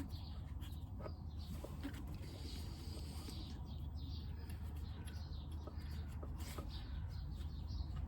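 Steady low background rumble with faint birds chirping, and a few light clicks as caliper bolts are threaded in by hand.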